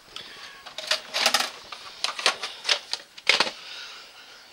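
VHS cassettes and their hard plastic cases being handled: a string of about six sharp clicks and clacks, some bunched in quick clusters.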